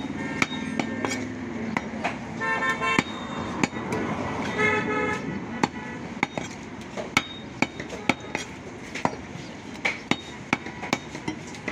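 A butcher's knife and cleaver knocking on a wooden log chopping block as beef is cut, a run of sharp, irregular knocks. Twice, about two and a half and five seconds in, a horn beeps in quick pulses over the market din.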